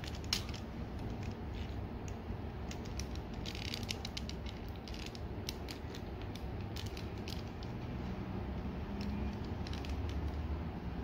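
Plastic parts of a Transformers Masterpiece MP-26 Road Rage figure clicking and creaking as they are worked by hand and pressed into place: a run of irregular small clicks.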